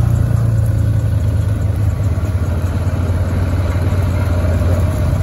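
ATV engine running steadily, a continuous low drone with no change in pitch.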